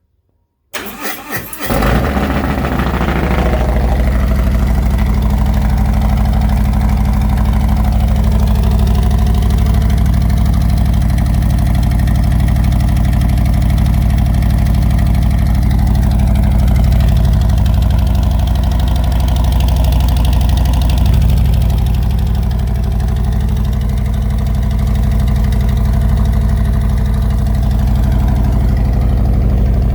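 Harley-Davidson Milwaukee-Eight V-twin cranked over on the starter, catching about two seconds in, then idling loudly and steadily. It runs through slip-on mufflers whose baffles are taped off and wrapped in metal wrapping.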